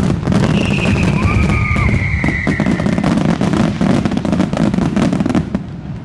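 Fireworks going off in a dense barrage: rapid crackling and popping over a continuous low rumble of bursts. A high whistling tone sounds and falls slightly in pitch during the first couple of seconds, and the barrage thins out near the end.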